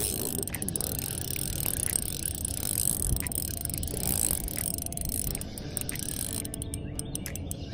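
Spinning reel being cranked to reel in a hooked shad, its gears turning, with a low steady rumble underneath.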